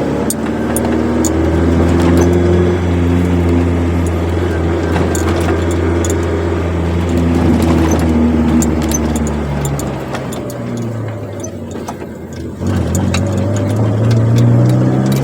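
Chevrolet Corsa Wind's four-cylinder engine through a sport exhaust, heard from inside the moving car: a steady drone while cruising, easing off about ten seconds in, then the pitch climbing again as it accelerates near the end.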